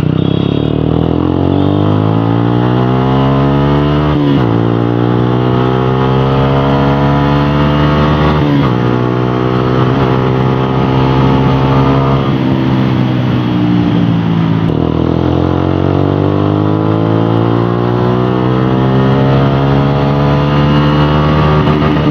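Suzuki Gixxer SF 155's single-cylinder air-cooled engine, breathing through an aftermarket Akrapovic silencer on a bend pipe that replaces the catalytic converter, accelerating hard up through the gears. The revs climb and then drop suddenly at upshifts about four and eight and a half seconds in. Past the halfway mark the engine eases off and settles into a steady drone at speed.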